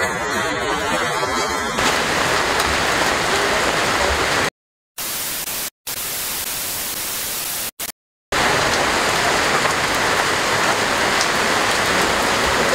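Steady rain hiss, broken a few seconds in by a TV-static glitch effect: a hiss of white noise that cuts out abruptly to silence several times, before the rain sound returns.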